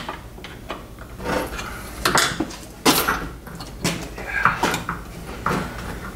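Hand tools and metal parts clinking and knocking against the metal housing of a Treadle-Vac power brake unit as its hoses are worked off: a string of separate knocks, the sharpest about three seconds in.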